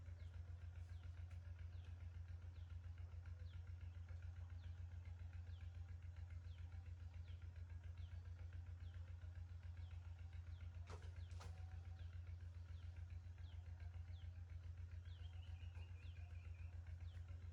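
Faint steady low hum with short, high, falling bird chirps repeating a little under twice a second. Two sharp clicks come about eleven seconds in, and a short falling trill sounds near the end.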